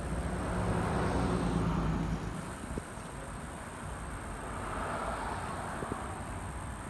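Passing road traffic: a steady rumble of vehicles that swells about a second in and again around five seconds in.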